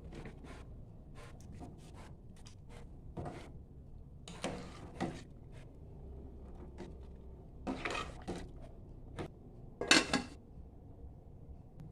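Kitchen utensils and cookware being handled: scattered light clicks and knocks, with a few louder clattering scrapes, the loudest about ten seconds in.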